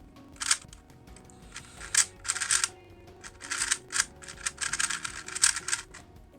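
Plastic 2x2x2 speed cube being turned fast in a timed solve: flurries of clicking, rattling layer turns with brief pauses between them.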